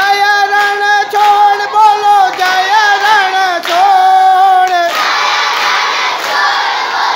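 A single high voice chanting in long, wavering held notes for about five seconds, then a crowd of young voices shouting and cheering together.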